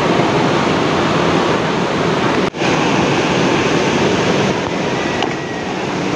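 Loud rushing river water, a steady even roar, with a brief dropout about two and a half seconds in.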